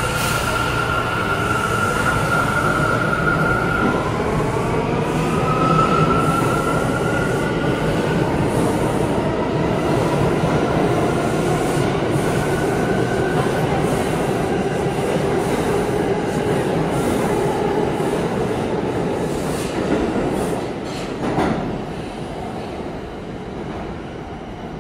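R179 subway train pulling out of the station. The motors whine in rising tones as it picks up speed, over the rumble and clatter of wheels on rail, and the noise fades as the last cars leave. One sharp knock near the end.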